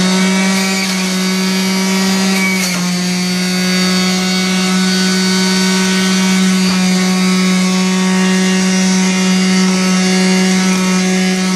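Omega MegaMouth centrifugal pulp-ejection juicer running at full speed with a steady, loud motor whine while apple, cucumber and bunched dandelion greens are pushed through its spinning cutting basket. The tone shifts slightly about three seconds in.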